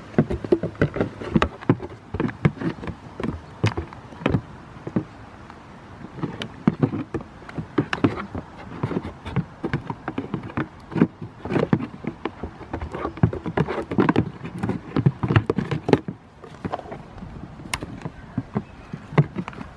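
Goats' hooves clattering and knocking on hollow upturned plastic tubs and boxes: irregular sharp knocks, several a second, as the goats climb and jostle.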